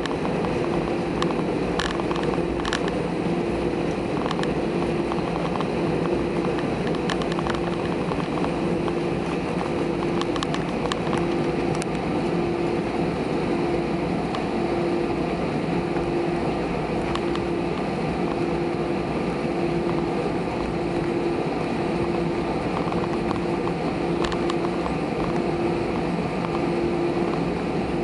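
Airbus A320 jet engines at taxi power heard from inside the cabin: a steady hum and rush, with a tone that pulses slowly about once every second and a half. A few light knocks or rattles come in the first twelve seconds.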